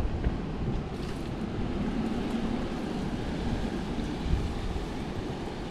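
Steady wind buffeting the microphone, with ocean surf washing against the rocks below.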